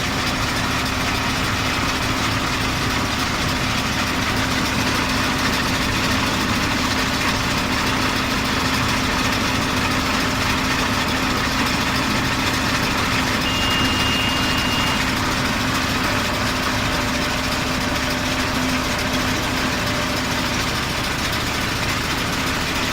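Zetor Crystal 12145 diesel tractor running steadily with a John Deere 575 round baler, a constant machine drone with a steady low hum. A short, high-pitched tone sounds about 14 seconds in.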